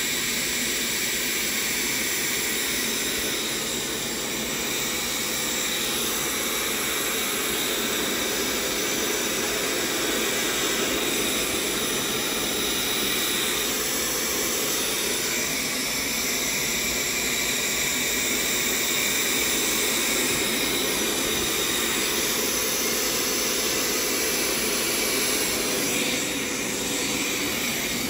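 Hoover Power Scrub XL carpet cleaner's suction motor running steadily while its hand-held upholstery tool is drawn over a wet fabric couch cushion, sucking the water back up.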